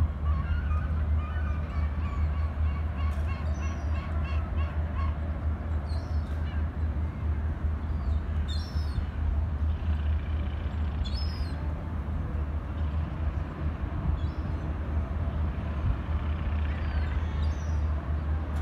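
Bird calls every few seconds, short high chirps with a few longer lower cries near the start, over a steady low outdoor rumble.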